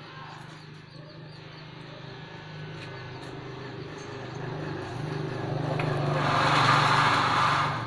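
Glass-cutting machine running with a steady motor hum; a hissing, scraping noise swells over about three seconds as it works, then stops abruptly near the end.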